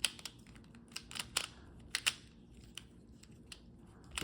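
Rubik's cube being turned fast by hand: irregular plastic clicks and clacks as the layers snap round, during the last step of the solve.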